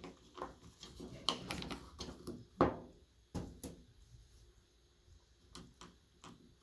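Scattered clicks and knocks of washing machine agitator parts being handled, with the loudest knock about two and a half seconds in.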